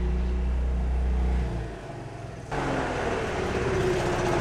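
A vehicle engine's low rumble fades out, then about two and a half seconds in there is an abrupt switch to a Honda Helix scooter's single-cylinder four-stroke engine running, with a steady low drone.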